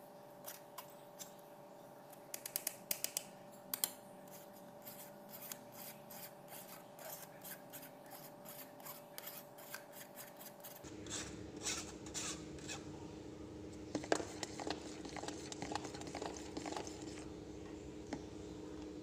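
Metal spoon scraping and pressing blended pineapple and dragon fruit pulp in a strainer to squeeze the juice out: a run of irregular scratchy clicks and scrapes, busiest a few seconds in.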